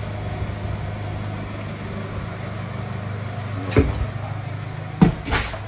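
Police van's engine idling with a steady low hum, with a few sharp knocks and thumps near the end as someone climbs into the van's rear compartment.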